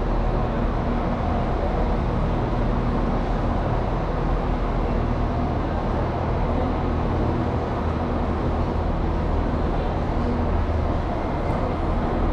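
Irish Rail 22000 Class InterCity diesel multiple unit pulling slowly into a terminus platform, its underfloor diesel engines running with a steady low drone.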